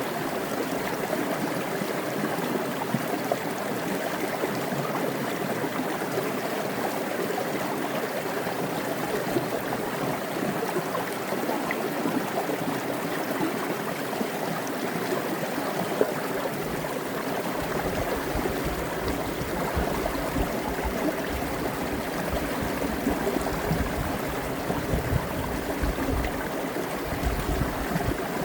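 Water from a small mountain creek cascading down a rock: a steady, even rushing and splashing. An irregular low rumble joins about halfway through.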